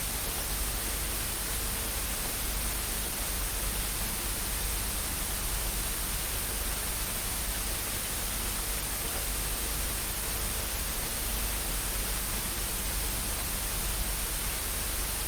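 Steady static hiss, an even noise with nothing else standing out.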